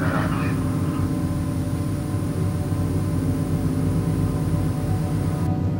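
Low, steady droning hum of an eerie ambient score, with a faint high whine that cuts off shortly before the end.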